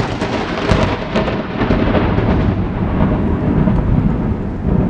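Thunder from a nearby lightning strike: it opens with a sharp crack, crackles for about a second and a half, then rolls on as a long, deep rumble.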